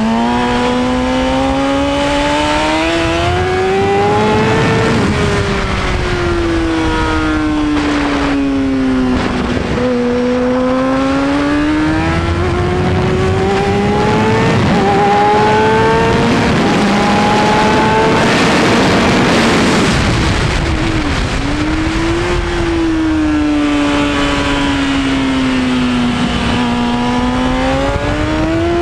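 2003 Kawasaki Ninja 636's inline-four engine heard from on board at track speed. It rises in pitch under acceleration, climbs in short steps through several upshifts, and falls away as the bike slows for corners, with wind rush over the microphone.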